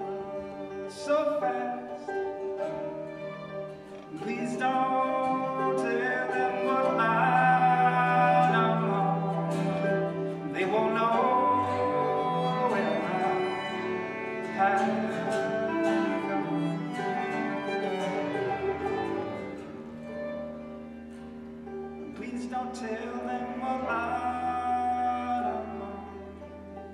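Instrumental break of a folk song on clawhammer banjo, violin, acoustic guitar and bass clarinet played together, with a held bass line under the melody. It is loudest through the middle.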